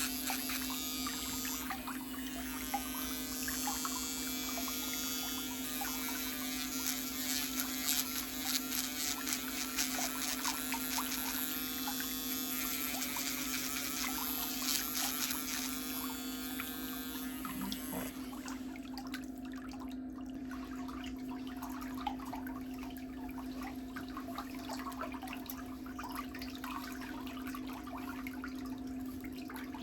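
Electric nail drill running steadily, grinding down thick toenails, with scraping and rasping against the nail that thins out about two-thirds of the way through.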